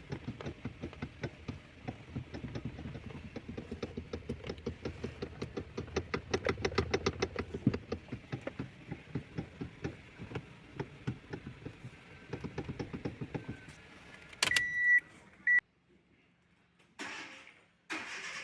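Toyota Corolla's electric power steering knocking: a long run of rapid, evenly repeated knocks as the steering is worked, the sign of a worn, knocking power steering unit. About fourteen seconds in the knocking stops, followed by a louder burst with a short high beep.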